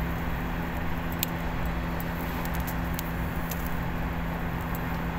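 Oxy-fuel brazing torch flame hissing steadily as a steel nut is brazed to stainless steel with flux-coated bronze rod, over a steady low hum, with a few faint crackles.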